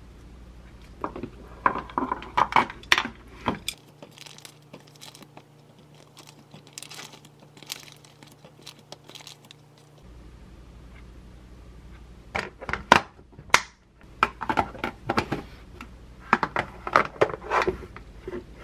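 Shredded cabbage and lettuce crinkling as hands press them into a plastic lunch box. Later a run of sharp clicks and knocks as the lunch-box lids are snapped shut and the boxes stacked.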